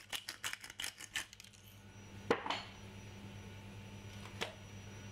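Wooden pepper mill grinding black pepper, a rapid run of ratcheting clicks that stops a little over a second in. A sharp knock follows about two seconds in and a fainter click later, over a steady low hum.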